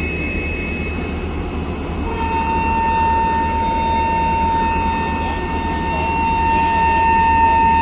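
Diesel-hauled express train running, with a steady low rumble and a steady high whine that comes in about two seconds in.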